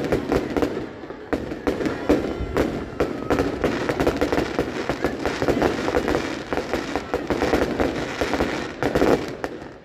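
Fireworks display: a dense, continuous run of bangs and crackling reports, several a second, easing off near the end.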